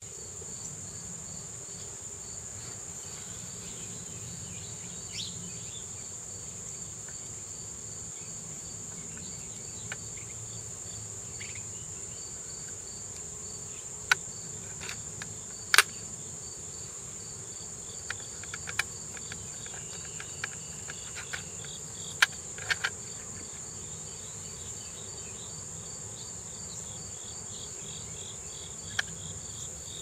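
Insects droning steadily at a high pitch, with an even, regular chirping under the drone. From about halfway in, a scatter of sharp clicks comes as a precision screwdriver is taken out of its plastic case and handled.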